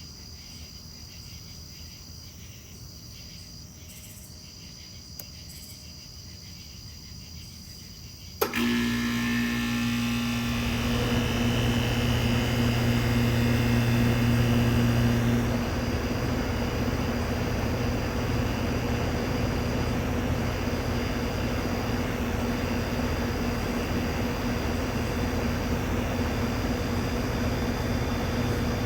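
Insects chirping steadily, then about a third of the way in a click as a 2008 Goodman GSC13 3-ton air-conditioner condensing unit starts: its Copeland reciprocating compressor hums and the condenser fan spins up with a whoosh. The unit comes up loudest for a few seconds, then settles to a steady run.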